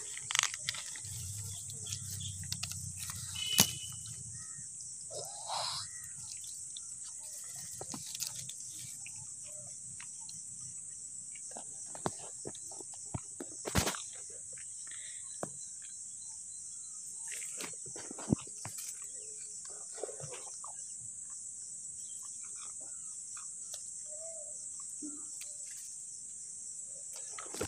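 Steady high-pitched chirring of an insect chorus, typical of crickets, with scattered sharp clicks and brief rustles of grass being pushed through.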